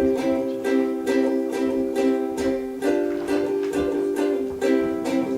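Ukulele strummed in a steady rhythm, about four strums a second, with no voice: an instrumental fill between sung lines. The chord changes about three seconds in.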